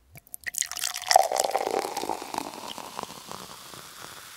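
Sparkling water poured into a glass, then its bubbles fizzing and crackling, slowly dying away over a few seconds.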